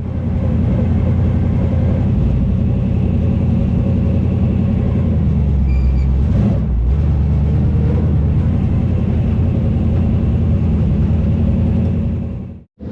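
Dirt late-model race car engines running on the track, heard as a steady low rumble, with a brief change about six seconds in.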